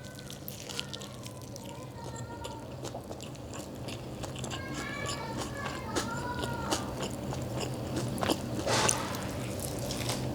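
A person biting into and chewing a jianbing guozi, with many small crisp crunches from the fried wonton-wrapper crackers inside.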